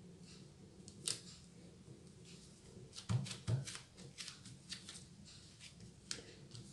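Wide brown packing tape pulled from its roll and pressed flat by hand onto a thin cotton T-shirt: a run of short rustles and scrapes, with two louder thumps about three seconds in.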